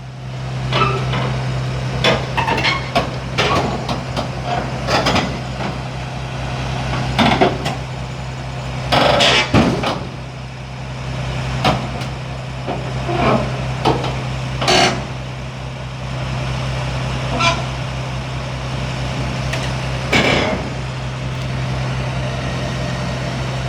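Shantui SD22F bulldozer's diesel engine running at a steady, even speed, with irregular knocks and clanks from the working machine, the loudest about nine seconds in and again about twenty seconds in.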